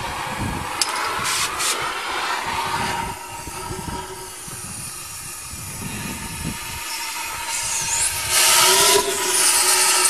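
Gas cutting torch hissing as its flame heats the worn rear axle bearing in a Case backhoe's axle housing, to cut a slit in it. The hiss is steady, then gets much louder and harsher about eight seconds in as the flame works on the bearing.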